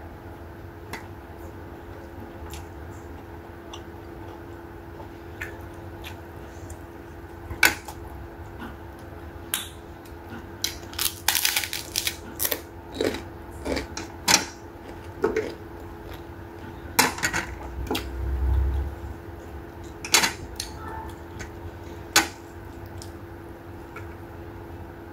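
Eating sounds: crunchy bites and chewing of a crispy fried piece, a scattering of sharp crunches that come thickest around the middle, over a steady low hum. A dull low thump near the end of the crunching.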